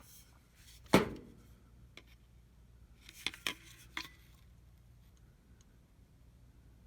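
Hard objects being handled for refuelling a butane torch: one sharp knock about a second in, then a few light clicks and taps.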